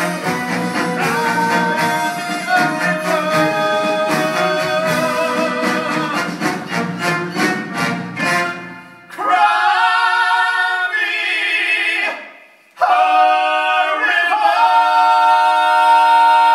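Song with vocals over instrumental accompaniment. About nine seconds in the backing drops out and voices hold long notes in harmony with vibrato, break off briefly, then hold a final sustained chord.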